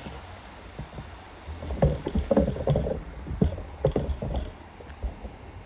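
Diesel multiple unit passing close through the station: a low rumble that builds about a second and a half in, with a run of loud irregular knocks and clatter for about three seconds, then dies back down.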